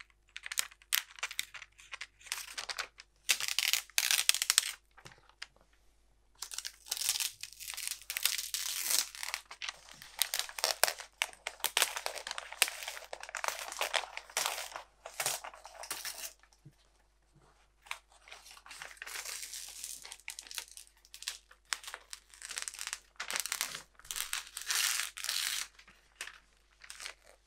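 Laser-printed label release paper being peeled slowly off a lino block, crackling and tearing as it comes away from the dried acrylic gel medium. It comes in irregular spells, with a short lull about two-thirds of the way through.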